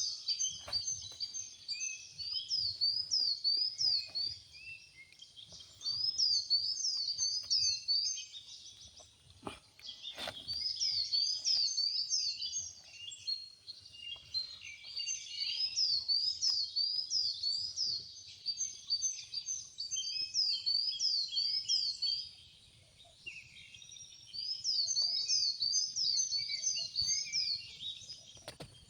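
A bird chirping in quick runs of high, sweeping notes, in bouts of a few seconds separated by short pauses. A couple of soft knocks come about ten seconds in.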